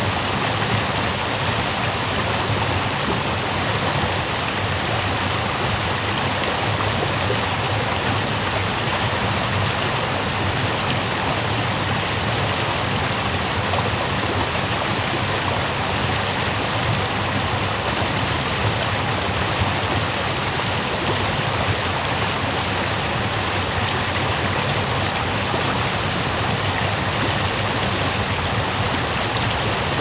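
Small winter-thaw waterfall: stream water pouring over a low rock ledge into a foamy pool, a steady, unbroken rush of water.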